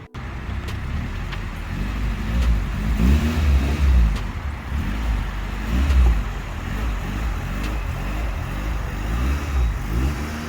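The B16A four-cylinder in a 1991 Honda Civic hatchback running, revved up and back down several times over a steady low rumble.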